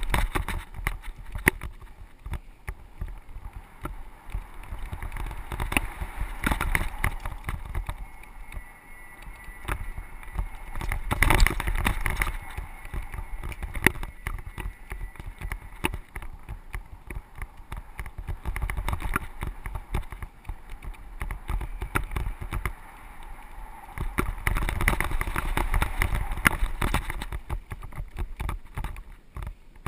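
Mountain bike rolling along a dirt trail: tyre noise over dirt with frequent rattling clicks and knocks from the bike, over a low rumble that swells and fades.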